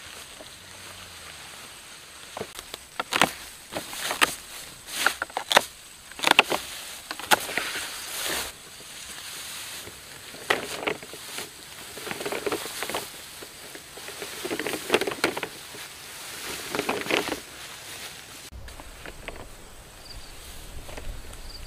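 Tall grass swishing and rustling in irregular strokes as a person walks through it, the stalks brushing against his legs and a coil of plastic pipe carried on his shoulder. Near the end the swishing stops and gives way to a low steady rumble.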